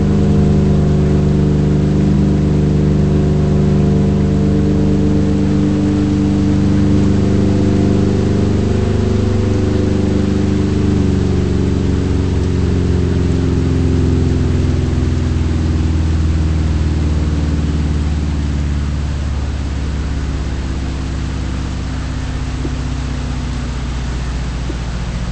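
ACA Banshee 115 electromechanical warning siren winding down: its tone falls slowly and steadily in pitch as the rotor coasts to a stop, getting a little quieter toward the end.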